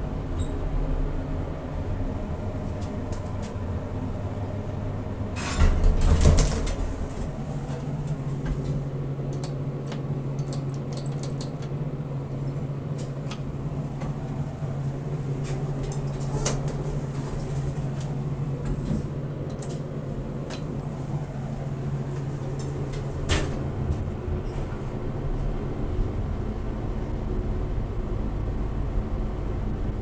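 1960s FIAM hydraulic-roped elevator machinery: a loud clatter of the sliding doors about six seconds in, then a steady low electric motor hum with scattered clicks and rattles, which fades near the end. The uploader calls the old motor really noisy.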